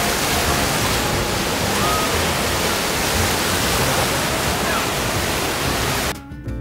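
Wave-pool water churning and splashing as artificial waves break around people wading through it, a steady loud rush. About six seconds in it cuts off abruptly to salsa music.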